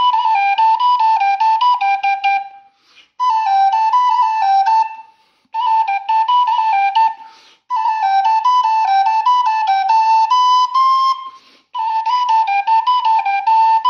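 A wooden Thai khlui, a vertical duct flute, is played as a stepping melody of short notes. It comes in about five phrases of two to three seconds each, with short breath gaps between them. The later phrases climb to a higher held note.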